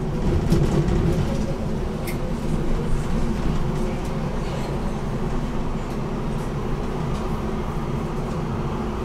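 BN GTL8 articulated tram running along the track: a steady drone of the traction motors and wheels on the rails.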